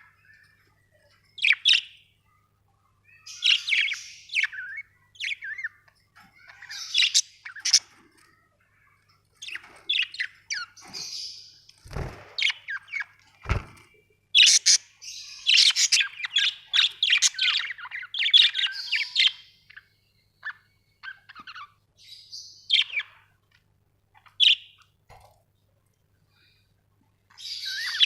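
Budgerigars chirping and chattering in irregular bursts of quick, high chirps with short pauses between. Two dull thumps come about halfway through, a second and a half apart.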